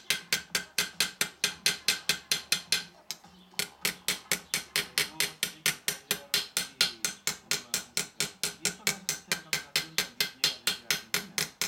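Small metalworking hammer tapping rapidly and evenly on a silver buckle, about five light metallic taps a second with a brief pause about three seconds in, setting down and texturing the soldered edges.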